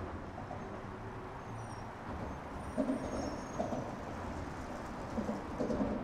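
Steady low rumble of road traffic, with a few louder bumps about halfway through and again near the end.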